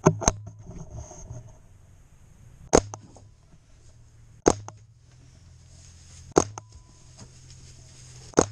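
Five shots from a Ruger 10/22 .22 rimfire rifle firing CCI Subsonic rounds, sharp single cracks about two seconds apart, over a low steady hum.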